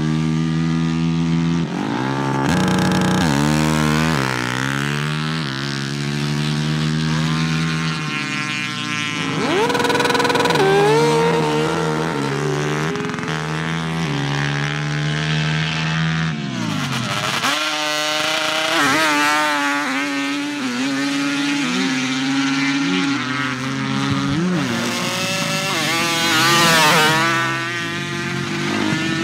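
Drag-racing ATV engines running at full throttle down a sand drag strip, several runs in turn, each with the engine pitch climbing hard and then sweeping away as the quad goes past.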